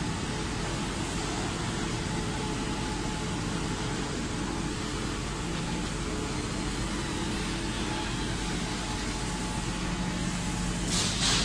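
Aluminium dross cooling machinery running: a steady mechanical rush with a faint low hum, and a brief louder hiss near the end.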